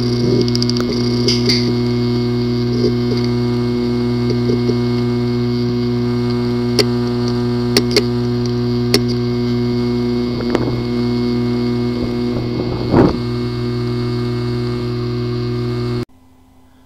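A hard drive with physical damage to its disk assembly running with a steady buzz and a few sharp, irregular clicks, with a couple of short wavering sounds about two-thirds through. The sound cuts off abruptly near the end.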